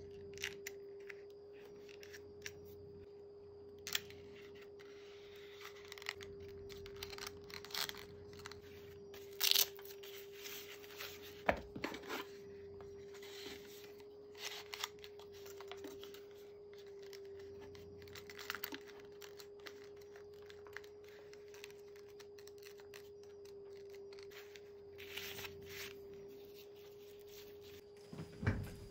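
Close handling of a leather sheath and metal binder clips: scattered clicks and short scraping, rustling sounds as the clips go onto the sheath's glued edges and the leather is handled, over a faint steady hum.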